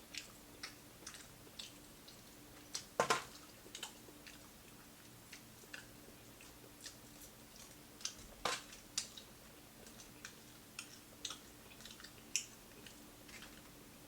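Close-up eating sounds: a person biting and chewing crispy fried fish and chicken wings, with irregular crunches and wet mouth clicks. The two loudest crunches come about 3 and 8.5 seconds in.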